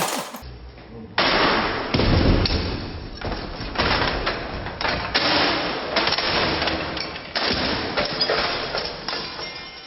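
A battered ceiling fan running with loud, continuous clattering and banging: many sharp knocks in quick succession, starting about a second in.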